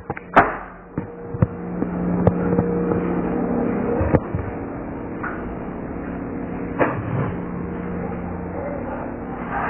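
Handling noise from a handheld phone camera being carried through a house: scattered knocks and rubs, the sharpest just after the start, over a steady low hum.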